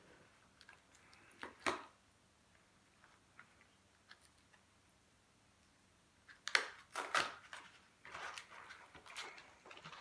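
Cardboard and plastic packaging of a small chilli challenge box being picked at and opened by hand: a couple of faint clicks just under two seconds in, then a burst of sharp crackling rustles about six and a half seconds in, with more rustling after it.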